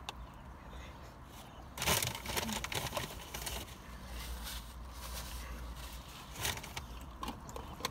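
Someone chewing a mouthful of chicken sandwich, with a rustling burst of paper, a napkin being handled, about two seconds in that lasts under two seconds, and a few small clicks near the end.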